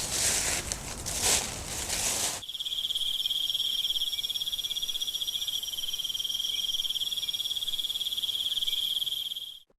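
A few irregular rustling swishes, then about two and a half seconds in a steady, high, rapidly pulsing insect trill of crickets chirring, with a fainter, higher trill over it. The trill cuts off suddenly near the end.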